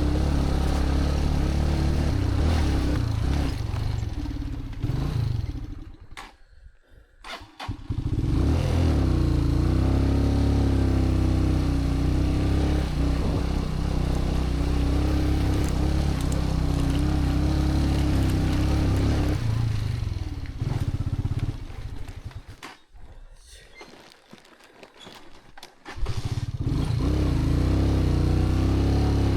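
Motorcycle engine running under way, its pitch rising and falling with the throttle; twice the engine note falls away almost to quiet, about five seconds in and again around twenty seconds in, then picks back up.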